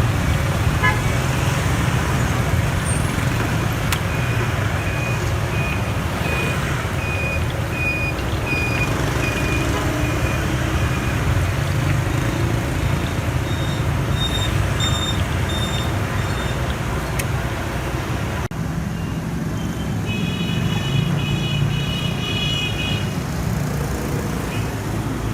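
Steady street traffic noise, with a run of short, evenly spaced electronic beeps through the middle. About twenty seconds in, a horn sounds for a few seconds.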